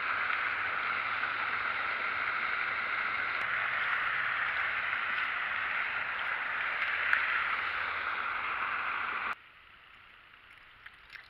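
Steady rush of running water, even and unbroken, cutting off abruptly about nine seconds in to a much quieter background with a few faint clicks.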